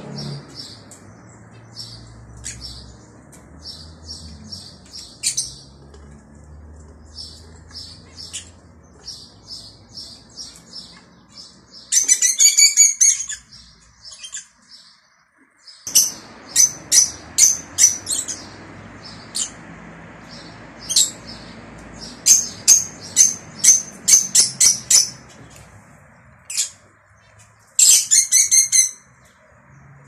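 Rosy-faced lovebirds chirping: a run of high twitters throughout, broken by several loud bursts of rapid, shrill chirps in the second half.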